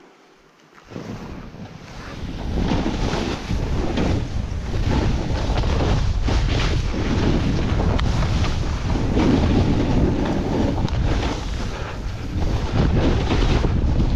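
Wind rushing over the microphone together with a snowboard's base and edges scraping and hissing through chopped-up snow at speed. It starts almost silent and builds up over the first two seconds as the board picks up speed.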